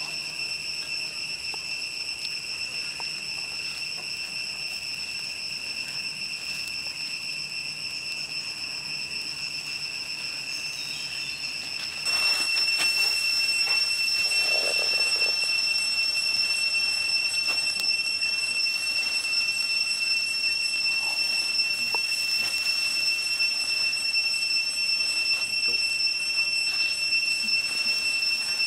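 Cicadas droning: a steady high-pitched whine that steps up louder about twelve seconds in.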